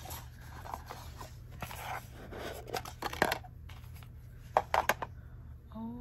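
Hands handling small cardboard jewellery boxes and gold chain bracelets: rustling and scraping with several sharp clicks of box lids and metal links, the loudest a little past halfway, over a low steady hum. A short pitched sound begins right at the end.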